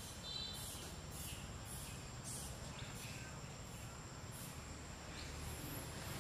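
Outdoor ambience: a steady high insect whine with short, high chirps about twice a second over a low rumble.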